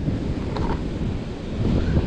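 Wind buffeting the microphone, with surf breaking on the beach underneath.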